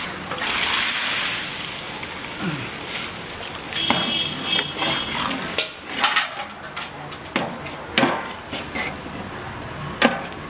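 A pot of mutton gravy cooking: a hiss of steam and sizzling at the start that fades within a couple of seconds, then several sharp clinks and knocks of a utensil against the metal pot.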